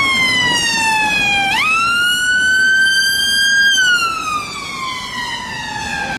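Ambulance siren wailing in slow glides. The pitch slides down, swoops back up about a second and a half in, holds and climbs a little, then slides down again before cutting off abruptly.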